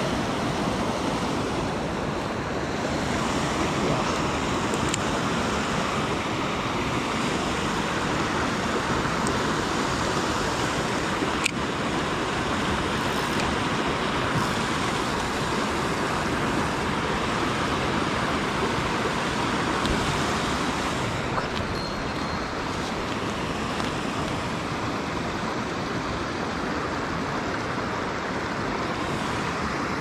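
Steady rushing of a small mountain creek tumbling over little cascades, with one faint click about eleven seconds in.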